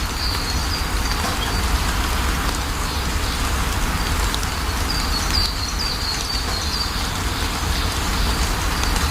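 Steady rain falling, with a constant low rumble underneath. Small birds give short high chirps near the start and again in a quick run a little past the middle.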